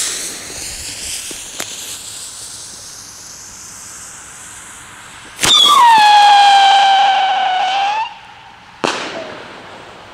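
Leslie Sputniks single-shot firework tube (Bombenrohr): the lit fuse hisses and sputters for about five seconds, then the tube fires with a sharp crack. A loud whistle follows for about two and a half seconds, dropping a little in pitch as the shot climbs, and a second bang comes about a second after the whistle stops.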